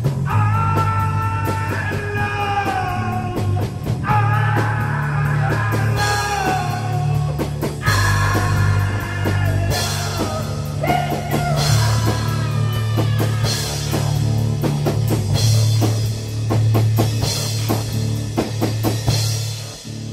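Rock music with a drum kit and a wavering melody line in phrases over a steady bass, fading out at the end.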